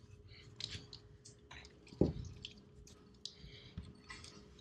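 Scattered clicks and light knocks of parts and tools being handled during engine work, with one louder knock about two seconds in, over a faint steady hum.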